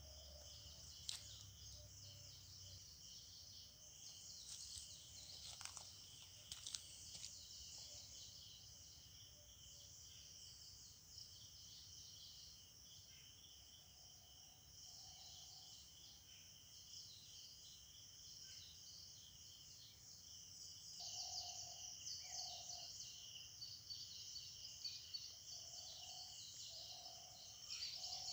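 Faint forest ambience: a steady, high insect drone runs throughout. A bird's short two-note call, low in pitch, sounds a few times in the second half.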